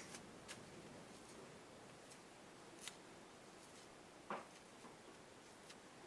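Near silence with a few faint clicks, the clearest about three seconds and four seconds in, from fly-tying tools being handled at the vise after the thread broke.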